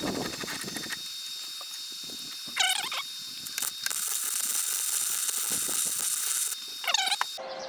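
Steady hiss and crackle of an arc welder laying a weld bead, heavier from about four seconds in. Twice, at about 2.6 s and 7 s, a dog gives a short whine.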